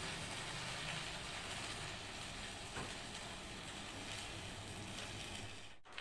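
Electric stick-welding arc burning steadily, a continuous even noise, broken by a brief dropout just before the end.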